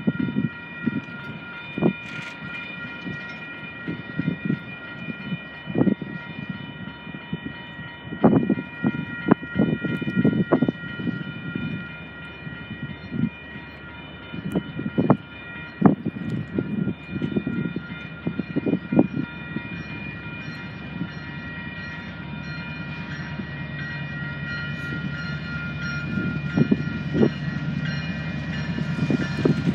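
A freight train rolling past, its wheels knocking irregularly over the track, with a steady high-pitched ringing tone held over it. The low rumble grows louder near the end.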